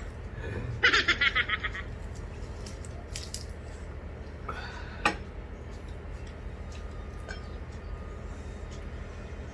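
A short, rapidly pulsing giggle about a second in. Then a quiet room with a low steady hum, a few faint clicks and one sharp knock about five seconds in.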